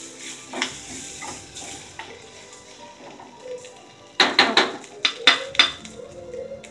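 Metal spoon scraping and clinking in a small metal tempering pan as onions and curry leaves fry in oil with a light sizzle. About four seconds in comes a quick run of loud, sharp metal knocks against the pan.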